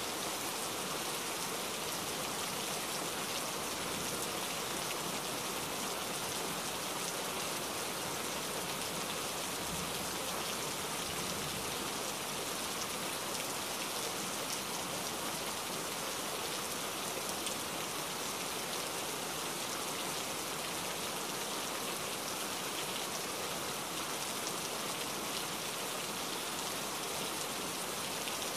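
Steady rain falling: an even, unbroken hiss of drops hitting surfaces.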